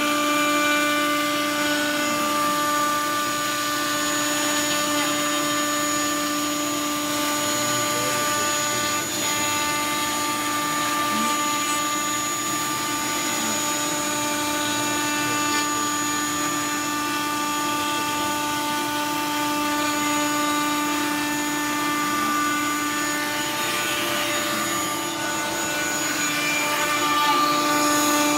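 Kit CNC router's spindle motor running steadily with a constant whine while its bit cuts into plywood.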